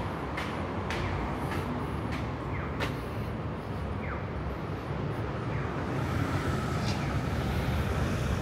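Steady road-traffic noise with vehicles passing close, growing louder from about six seconds in. In the first three seconds, footsteps on stone stairs tap about twice a second.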